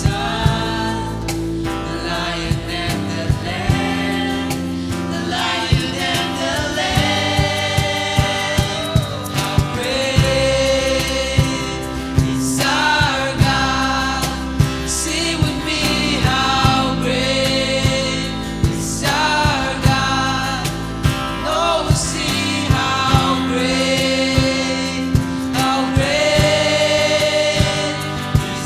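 Christian worship song with singing over instrumental accompaniment and a steady beat.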